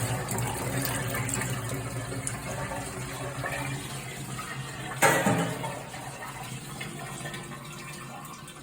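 Water running steadily through newly plumbed filter pipework, slowly growing quieter, with one sudden knock about five seconds in.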